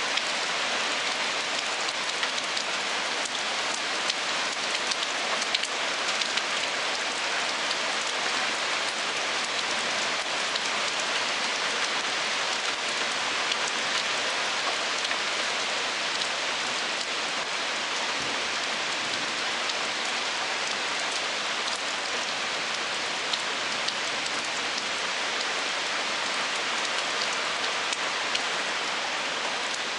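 Heavy rain pouring steadily on pavement, lawn and parked cars, an even hiss with a few sharper drop ticks.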